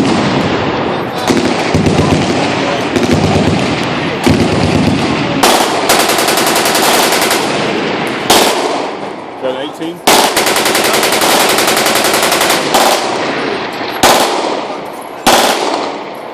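Many machine guns firing at once on a firing line: dense, overlapping full-auto bursts, with two long, very fast continuous strings in the middle and several sharp louder bursts. The fire tapers off near the end.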